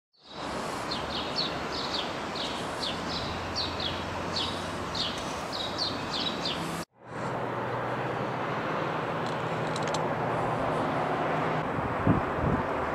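Outdoor ambience: small birds chirping in quick repeated calls over a steady low background hum. About seven seconds in the sound cuts off abruptly and gives way to a steadier, slightly louder background noise, with a brief low bump near the end.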